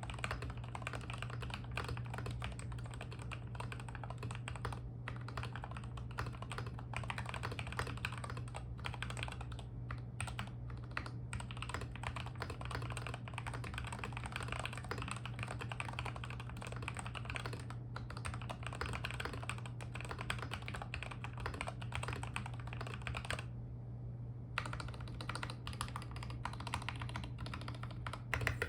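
Fast, continuous typing on an MMD87 tenkeyless mechanical keyboard with lubed Gateron Milky Yellow Pro linear switches, XDA keycaps, tape mod and foam mod, with a steady low hum underneath. The typing stops briefly about 23 seconds in, then the stabilized long keys are pressed repeatedly.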